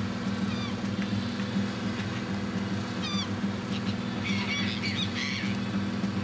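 Seabirds crying in short, bending calls over the steady low hum of a boat engine, with a flurry of calls about four to five seconds in.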